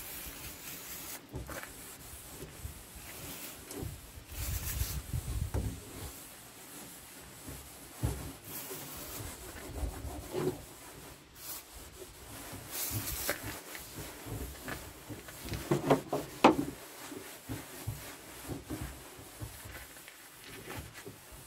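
Short hissing spritzes from a hand pump spray bottle of cleaner onto a bare metal floor panel, between stretches of rubbing as the panel is wiped down. A few sharp knocks and clicks of handling come about three-quarters of the way in.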